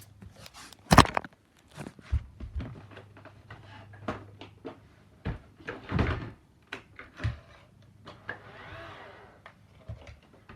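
Roomba 980 robot vacuum at work, with irregular knocks, clicks and thuds over a faint low hum. The loudest knocks come about a second in and around six seconds in.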